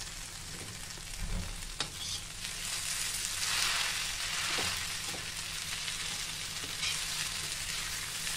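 Okra sizzling as it dry-fries in oil in a steel kadhai, with no water added. A perforated steel spatula stirs and scrapes against the pan, with a few short scrapes, and the sizzle gets louder for a second or so midway through as the okra is turned.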